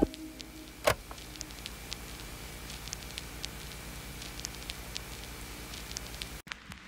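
Faint crackling hiss with scattered small ticks and one sharper click about a second in, cutting off abruptly near the end.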